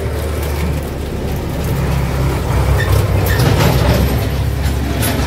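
Low engine rumble of a motor vehicle, growing louder about three seconds in and then easing off.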